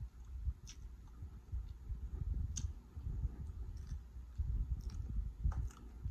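Close-miked chewing of crab meat, an irregular low churning with a few sharp clicks scattered through it.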